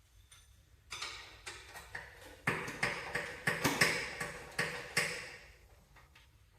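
Hand tools knocking and clinking against metal tractor parts: a run of irregular sharp taps and clanks, the loudest in the middle, dying away near the end.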